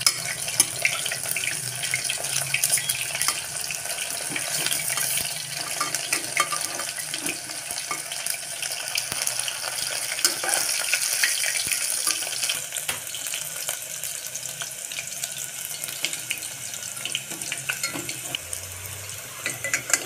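Chicken nuggets deep-frying in hot oil: a steady sizzle full of small crackles and pops, easing a little about two-thirds through as the pieces finish frying.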